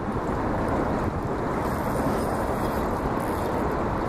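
Steady rushing of wind on the microphone over choppy river water.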